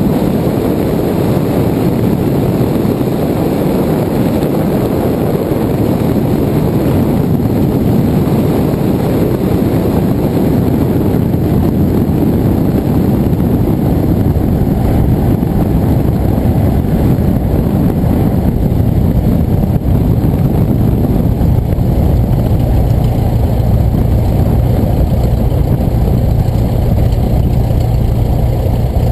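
Cessna 172's piston engine and propeller running steadily while the plane taxis, heard up close from outside under the wing. A steadier low hum comes through near the end.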